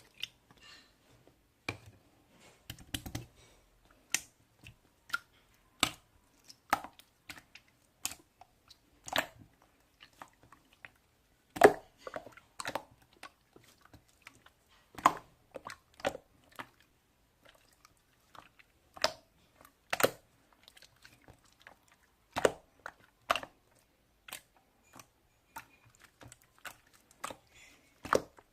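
Irregular sharp clicks and taps in a small room, one or two a second with pauses, a few louder knocks among them.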